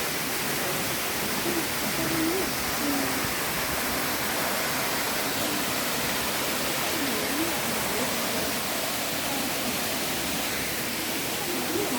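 Waterfall rushing: a steady, full hiss of falling water with no change throughout.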